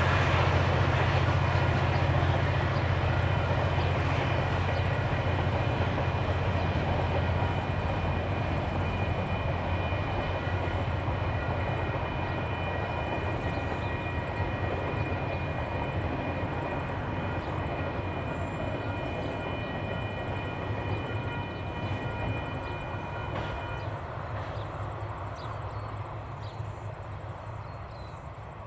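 Air Tractor AT-402B's turboprop engine and propeller running as the plane taxis: a low propeller drone under a steady high turbine whine. The whine stops about three quarters of the way through, and the whole sound slowly fades.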